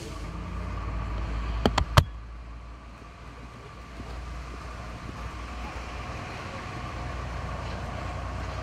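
Steady low rumble of outdoor ambience with three sharp knocks in quick succession about two seconds in, the last one the loudest.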